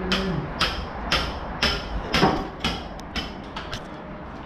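Hammer blows struck in a steady rhythm, about two a second, around nine strikes that grow lighter near the end.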